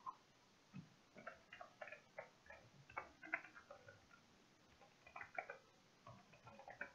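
Faint computer keyboard typing: short key clicks in quick clusters with brief pauses between them.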